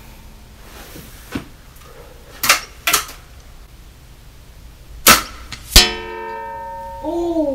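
A nitro-piston break-barrel air rifle (Sig Sauer ASP20, .22) fires once with a sharp crack about five seconds in. A moment later a steel target plate rings with a pitched clang that dies away over about a second. Two smaller sharp knocks come earlier, and a brief rising-then-falling hum comes at the very end.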